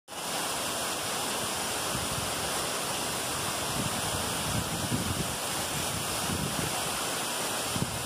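Waterfall pouring down rock ledges into a pool: a steady rush of falling water, with some irregular low buffeting.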